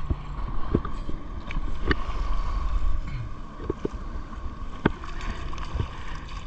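Water lapping and splashing against a plastic sit-on-top fishing kayak's hull, with a few light knocks. Wind rumbles on the microphone, heaviest in the first three seconds.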